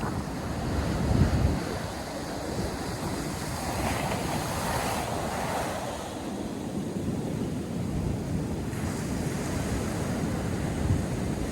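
North Sea surf washing onto the beach, with a wave breaking and hissing about four to six seconds in. Wind buffets the microphone with a low rumble about a second in.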